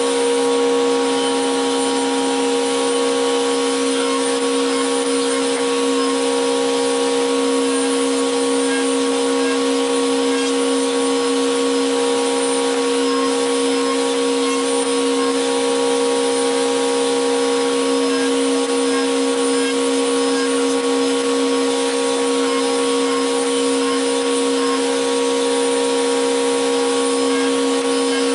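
An electric woodshop machine running steadily at constant speed, a continuous hum with a few fixed steady tones over a hiss.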